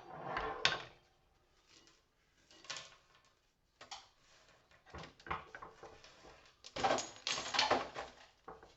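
Small metal scrap parts being handled on a workbench: a scattering of sharp clicks and knocks, with a busier run of clattering about seven seconds in.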